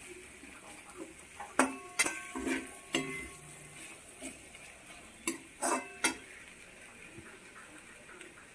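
A metal spatula stirring bamboo shoot sabzi in a steel kadhai, scraping and knocking against the pan with several sharp, ringing metallic clinks, most of them in the first six seconds, over a faint frying sizzle.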